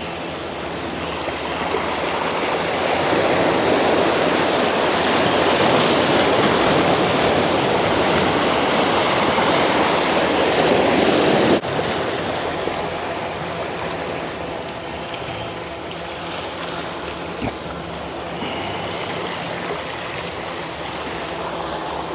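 Seawater surging and rushing through channels in shoreline rocks: a steady rush of foaming water that swells louder over the first few seconds and drops off sharply about halfway through.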